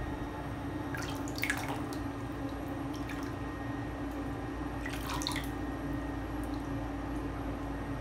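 Water drips and small splashes in a bathtub: a short cluster of drips about a second in, a single drip near three seconds, and another cluster about five seconds in, over a steady low hum.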